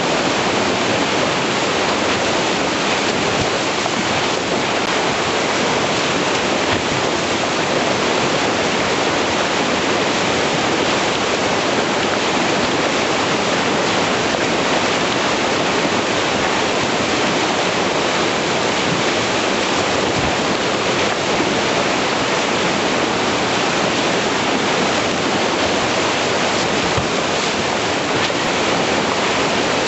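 Whitewater rushing steadily and loudly through a river rapid.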